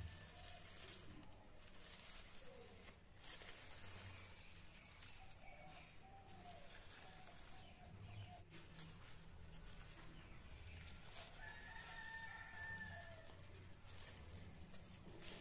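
Soft crinkling of a thin plastic bag being untied and peeled open from around a plant's root ball. Faint bird calls in the background, with a longer call near the end.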